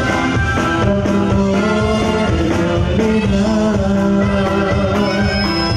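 Live Mexican norteño-style band playing a dance number: accordion and saxophone over guitar, bass and drum kit, at a steady beat.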